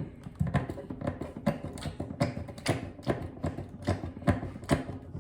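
Wet, irregular squelching and clicking as conditioner is worked by hand into a soaked wig, about three short squishes a second.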